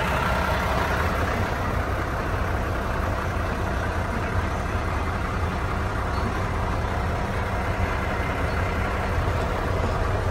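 Mack MP8 inline-six diesel engine of a 2017 Mack CXU613 day cab idling steadily.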